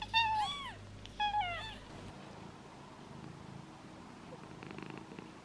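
Cat meowing twice, two short high calls about a second apart, each rising and then falling in pitch.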